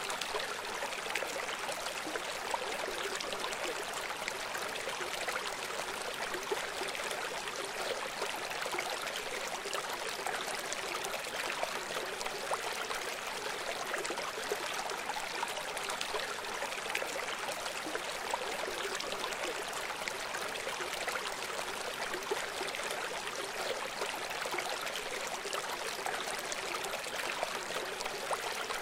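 River water flowing steadily: an even rush of moving water with small splashes scattered through it.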